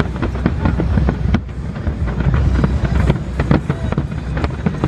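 Fireworks display: a rapid, unbroken string of sharp bangs and crackles over a continuous low rumble.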